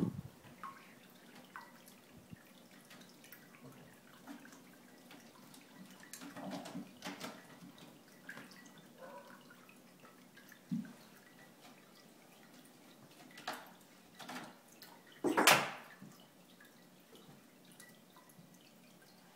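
Irregular soft knocks, taps and scratches of two F2 Savannah cats' claws and paws scrambling over a carpeted cat tree and wicker basket as they play-fight, with one louder knock about fifteen seconds in.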